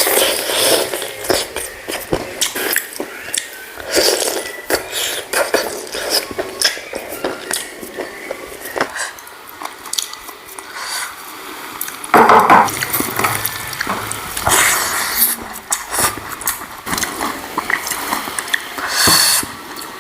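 Close-miked eating of chicken curry: wet chewing, smacking and biting, with light clinks against a plate. A louder stretch of noise comes about twelve seconds in.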